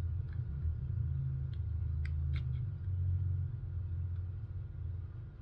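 A steady low rumble with a few light clicks about one and a half to two and a half seconds in, as of plastic toy parts being handled.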